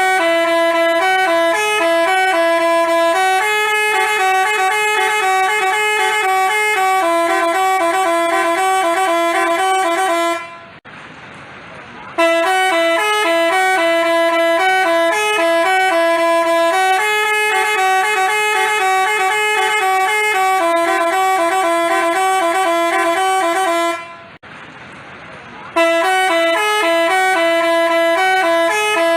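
Basuri telolet musical bus horn playing a tune of held, stepped notes in long repeating phrases, breaking off briefly twice.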